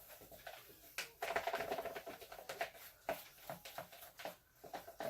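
Stirring utensil scraping and knocking around a bowl of thick slime mixture (school glue, shaving cream and paint), a quick run of irregular scrapes and clicks.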